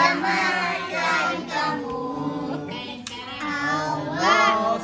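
A group of young children singing together, a birthday song sung around a cake with lit candles.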